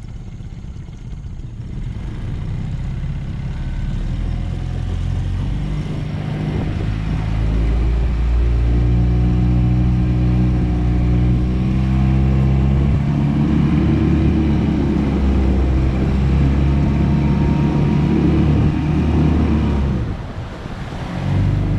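Honda 9.9 four-stroke outboard motor on a jon boat being throttled up, growing louder over the first several seconds, then running steadily at speed. Near the end the engine dips briefly and picks up again.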